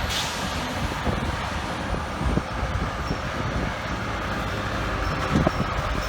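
City street traffic noise: a steady mix of engine rumble and road noise, with no siren or air horn sounding.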